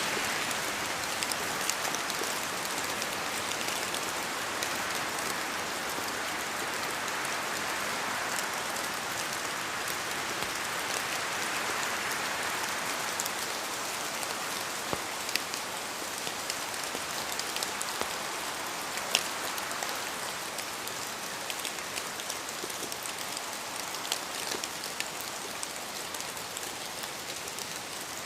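Steady rain falling in a forest: a continuous hiss dotted with sharp ticks of single drops, while wind swells and eases through it.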